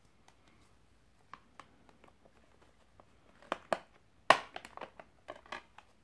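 Clicks and plastic clatter from a clear multi-disc Blu-ray case as a disc is pressed and pried off its centre hub. The clicks come thicker from about halfway, with the loudest snap a little past four seconds in, as the disc comes free.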